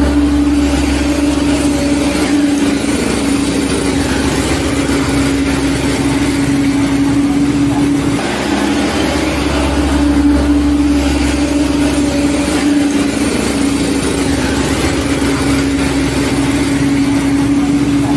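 A vehicle engine running steadily at a constant pitch, with a low rumble under it and a brief break about eight seconds in.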